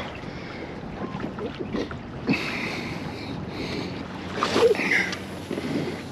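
Water sloshing and splashing around a kayak, in several irregular bursts over a steady background of wind on the microphone.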